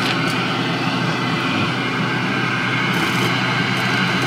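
Jiutu soldering fume extractor running steadily, its fan pulling air in through the flexible hose with an even rushing hiss over a low motor hum.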